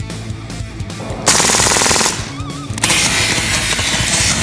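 Beretta 92A1 CO2 gas-blowback BB pistol firing on full auto: a rapid burst of shots about a second in, then a second, longer burst near the end.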